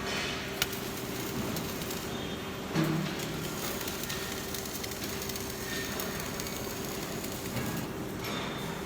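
Flux-cored arc welding on stainless steel: the arc gives a steady hiss. A sharp click about half a second in and a short low thump near three seconds.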